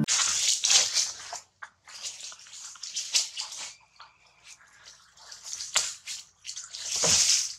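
Dry leaf litter rustling and crackling in short, irregular bursts, with a louder, fuller rustle near the end.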